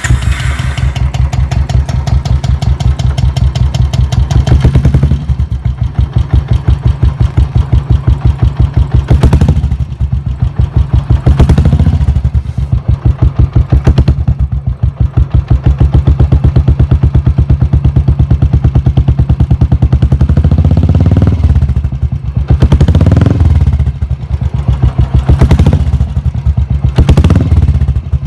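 Royal Enfield single-cylinder motorcycle engine running through an aftermarket silencer at idle with an even, steady thump, blipped with short revs about seven times.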